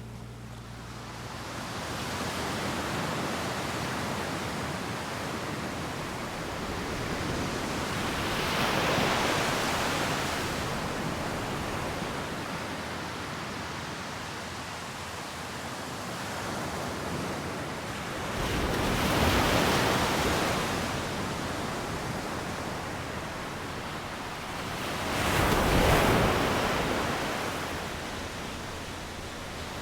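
Sea waves breaking on a beach: a steady wash of surf that swells three times as waves come in, the last the loudest.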